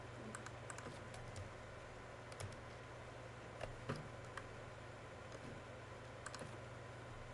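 Faint, scattered clicks of a computer mouse, over a low steady hum.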